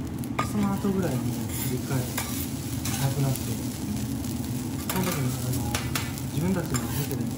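Metal spatulas scraping and clacking on a flat steel teppanyaki griddle as fried rice is pushed and turned, over a steady sizzle of the rice frying.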